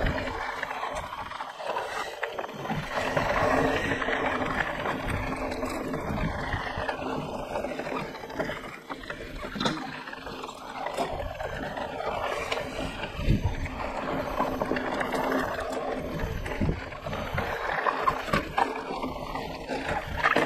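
Mountain bike being ridden along a dirt trail: continuous tyre and riding noise, with frequent clicks and knocks as the bike and chain rattle over bumps.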